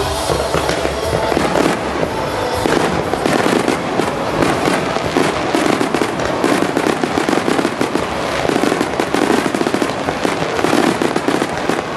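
Star-mine fireworks barrage: shells burst in rapid, overlapping succession with dense crackling, with no break between bangs. Music sounds faintly under the first second or two.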